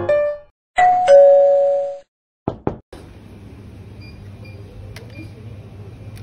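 Doorbell-style two-note ding-dong chime, a higher note followed by a lower one held for about a second. Two quick sharp clicks follow, then a steady low hum of shop ambience.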